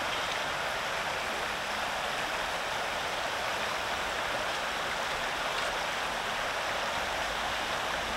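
Creek water running over a rocky bed, a steady rush of flowing water.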